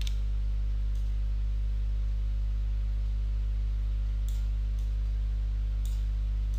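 Steady low electrical hum from the recording setup, with a few faint computer-mouse clicks scattered through it.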